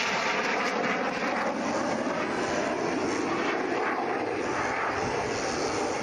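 Jet engine of a BAE Hawk trainer in display flight: a steady rushing roar that eases off slightly as the jet climbs away.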